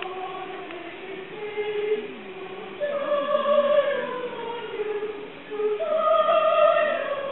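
Voices singing a slow song in long held notes, growing louder about three seconds in.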